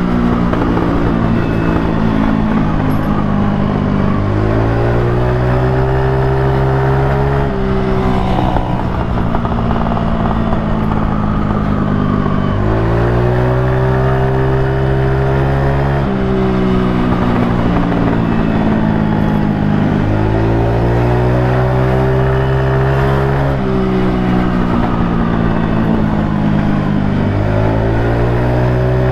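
Kuba Blueberry scooter's engine through an aftermarket Akrapovic exhaust while riding: the engine note rises as the throttle opens, holds, then drops when it is eased off, four times over.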